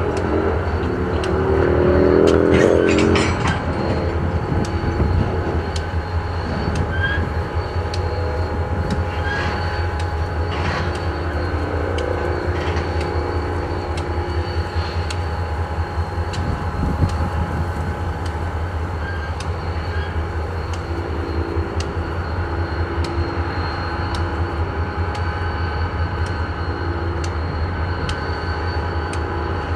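Freight cars moving slowly through a rail yard: a steady low rumble with scattered clicks and squealing tones that come and go, loudest about two to three seconds in.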